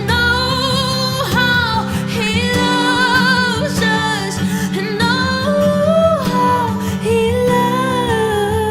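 Worship music: a singer holds long, wordless notes with vibrato over acoustic guitar chords.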